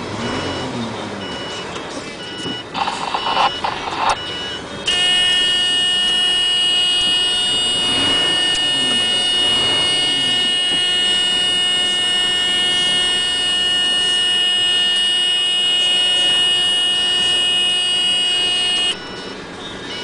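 Reversing-alarm beeps over a running engine. About five seconds in, a loud, steady, high-pitched electronic tone starts, holds unchanged and cuts off suddenly near the end.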